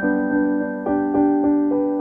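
Background piano music: a melody of evenly paced notes, about three or four a second.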